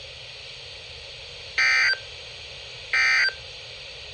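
NOAA Weather Radio SAME digital data bursts: two short, identical raspy beeps about a second and a half apart. Coming straight after the spoken warning, they are typical of the end-of-message code that closes a weather-radio alert. A steady faint hiss lies under them.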